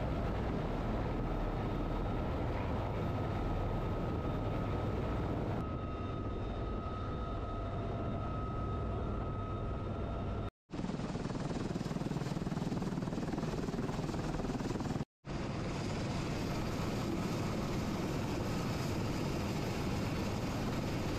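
UH-1Y Venom helicopter running: steady rotor and turbine noise with a thin high whine. It cuts out abruptly twice for a split second.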